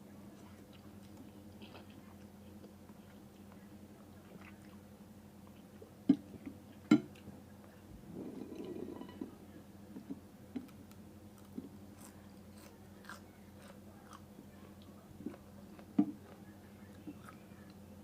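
A person eating boat noodles: quiet chewing with a few sharp clicks, the loudest about six and seven seconds in and again near sixteen seconds, over a faint steady hum.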